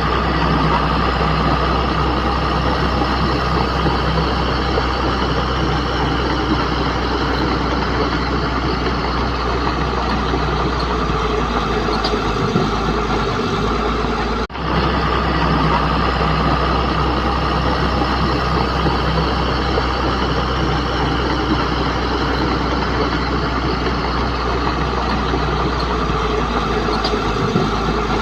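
Bulldozer's diesel engine running steadily, with a brief break about halfway through.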